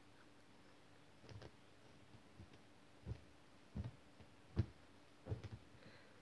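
Kitten playing on a sofa: a few soft, scattered taps and thumps as it bats and pounces at a strap, the loudest about four and a half seconds in.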